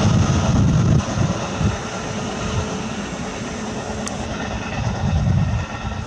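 Electric commuter train running along the track and moving away, a steady rumbling rolling noise that is louder for the first second and then settles.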